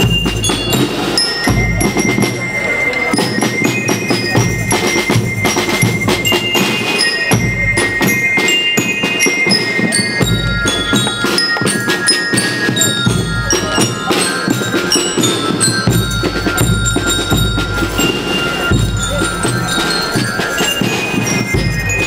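School marching rhythm band playing: bell lyres ring out a melody of bright metallic notes over a steady beat of bass drums and snare drums.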